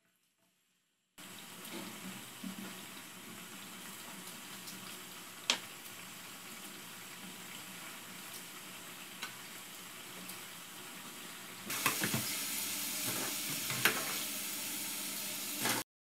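Potato cubes deep-frying in a pot of hot oil, a steady sizzling hiss that starts about a second in and grows louder near the end. A few sharp clicks and knocks from utensils break through it.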